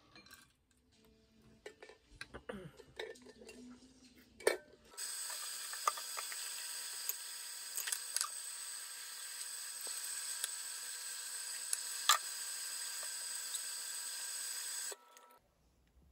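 A few quiet handling noises and a single knock, then a tap running steadily into a ceramic baking dish for about ten seconds while it is scrubbed with a sponge, with occasional clinks of the dish. The running water starts and stops abruptly.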